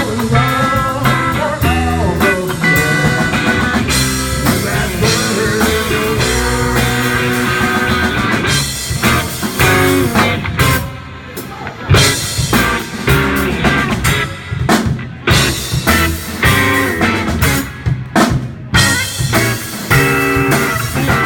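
Blues-rock band playing an instrumental passage: guitar over drum kit and bass. About halfway through the music breaks into sharp accented hits separated by short gaps.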